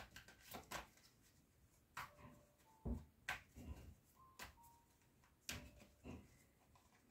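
Faint, irregular taps and clicks of tarot cards being handled and laid down on a table, about half a dozen over several seconds.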